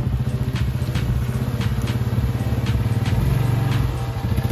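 ATV engine running at low speed, rising in level near the end as the machine climbs the trail toward the microphone. A few sharp ticks are scattered over it.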